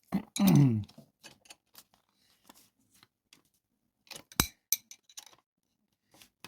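Scattered light clicks and clinks of a motorcycle chain riveting tool being set up over a connecting-link pin, with one sharp metal click about four seconds in. A short grunt falling in pitch near the start.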